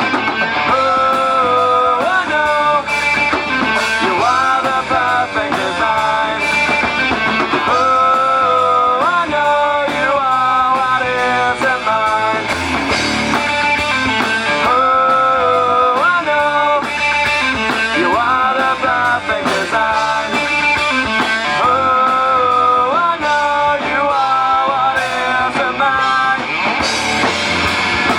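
Rock band playing live: a melodic lead line in short, bending phrases over guitar and a drum kit.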